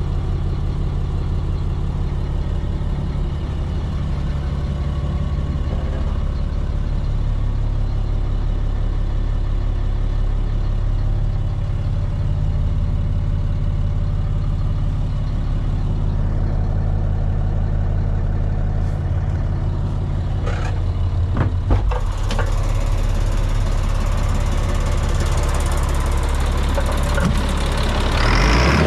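1999 GMC C6500 truck's engine idling steadily. A few sharp clicks and knocks come about two-thirds of the way through, and after them the engine sounds brighter and fuller.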